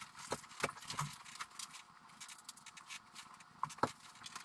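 Faint scattered clicks and taps of bolts, washers and nuts being handled and fitted through the side of a tractor cab frame: a few light clicks in the first second, then two sharper ones near the end.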